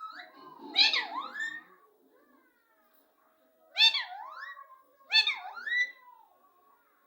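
Pet parrot calling: three cries about a second long, each dipping in pitch and rising again, with a gap of about two seconds after the first.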